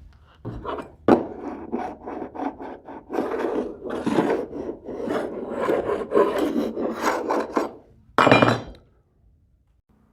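Irregular rubbing and scraping strokes on wood, like hand filing or sanding, with one louder scrape just after eight seconds.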